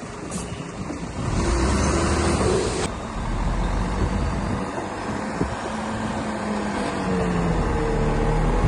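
DH17 C2 LGP bulldozer's diesel engine running under load while pushing soil, its note shifting in pitch in the second half. A hissing, rushing noise rises over it about a second in and stops sharply under two seconds later.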